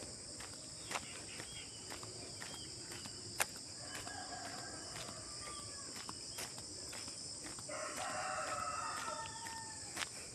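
A rooster crowing twice, a fainter crow about four seconds in and a longer, louder one near eight seconds in, over a steady high drone of insects.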